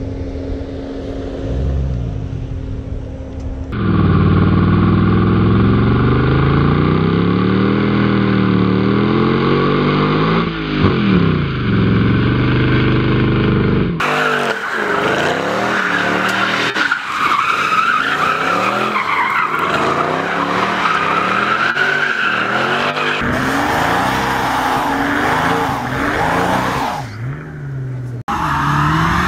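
Mercedes-AMG W221 S-Class and W211 E-Class sedans doing burnouts and donuts: the engine revs up and down while the rear tyres squeal and screech as they spin. Several clips are cut together, so the sound changes abruptly a few times.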